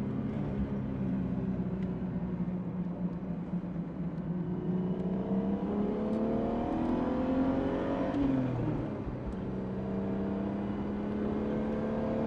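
BMW E46 330i's 3.0-litre inline-six, heard from inside the cabin through free-flow headers and a valved muffler with its valves closed. It cruises steadily, then accelerates with a rising pitch, drops at a gear change about eight seconds in, and accelerates again.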